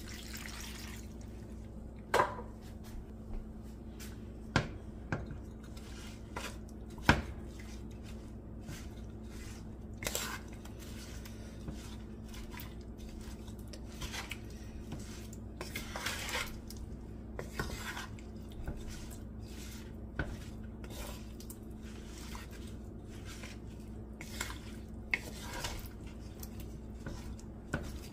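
Water poured from a cup into a pot of raw gizzards at the start, then a wooden spoon stirring the gizzards in an aluminium pot, with scattered sharp knocks of the spoon against the pot. A steady low hum runs underneath.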